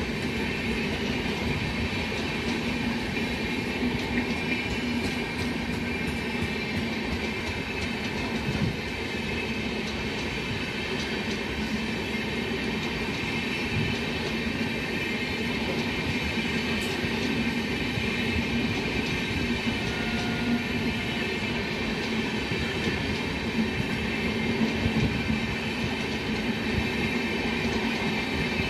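LHB passenger coaches of an express train rolling past on the adjacent track: a steady rumble of wheels on rails with a few clacks over rail joints.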